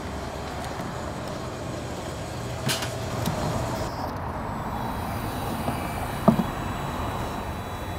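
Steady low rumble of vehicle traffic at a gas station, with a short clack about a third of the way in and a single sharp knock a little past the middle.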